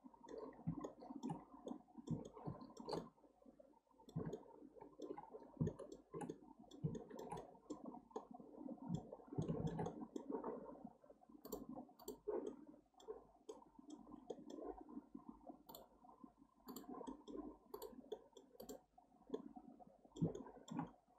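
Faint, irregular clicking of a computer mouse: button clicks and scroll-wheel ticks in scattered runs, over a low, uneven rustle.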